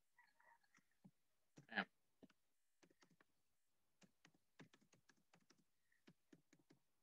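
Faint typing on a computer keyboard: a run of quick, uneven keystrokes, thickest in the second half. A brief voice sound comes about two seconds in.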